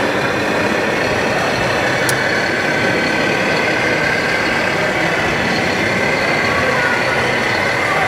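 Steady engine-like running from an RC model truck crane as it is worked by remote control, with a faint steady whine through it.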